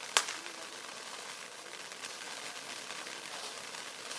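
Sky Painter Magic Show firework fountain spraying sparks: a steady hiss, with one sharp crack just after the start and a fainter crackle about two seconds in.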